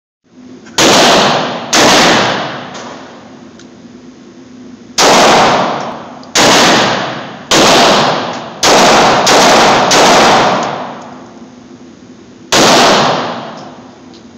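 Taurus 608 .357 Magnum revolver firing at an indoor range: a string of single loud shots, unevenly spaced from under a second to about three seconds apart, each trailing off in a long echo from the range walls.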